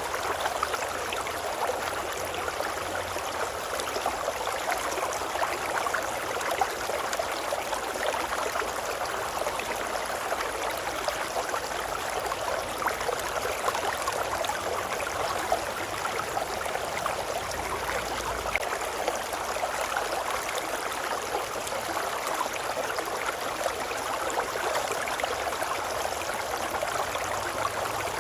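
A river babbling steadily: a dense, even splashing of running water that does not change.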